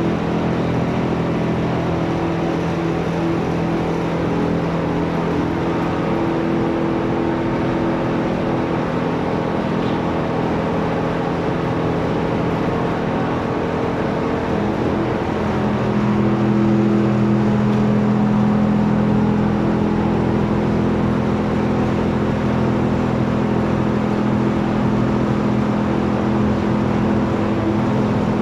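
Corn, cotton and paddy stalk shredding machine running with a steady mechanical drone. About halfway through its tone shifts and it grows a little louder.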